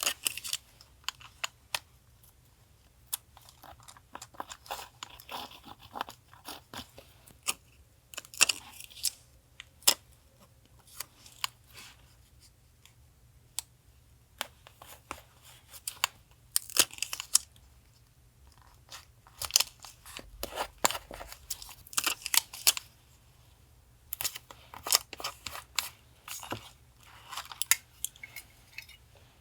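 Paper and stickers being handled for collage journaling: irregular clusters of crinkles, rustles and small crisp taps and clicks, with short pauses between them.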